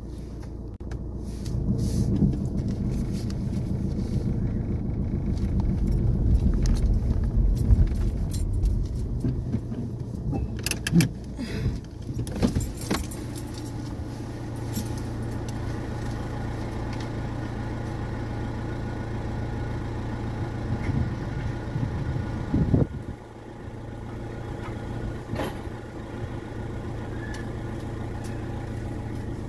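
A car being driven: a steady engine and road hum, louder and rumbling over the first several seconds, with scattered clicks and rattles. About 23 seconds in it drops suddenly to a quieter, steady hum.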